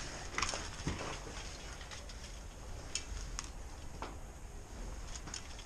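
Footsteps of a player walking on a gritty concrete floor: sparse, irregular light clicks and scuffs a fraction of a second to a second apart.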